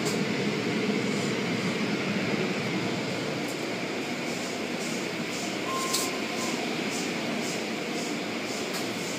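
Automatic tunnel car wash running: spinning cloth brushes and water spray make a steady wash noise. Faint ticks come about twice a second in the second half, and a short beep sounds about six seconds in.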